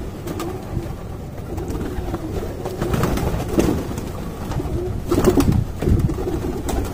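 A large flock of pigeons cooing as they crowd in to feed, with flapping wings; a brief louder flurry of wingbeats comes about five seconds in.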